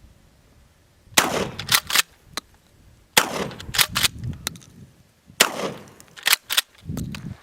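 Winchester Model 1300 Featherweight 12-gauge pump shotgun firing birdshot: three loud shots about two seconds apart. Each shot is followed by a few short sharp clacks as the pump action is worked.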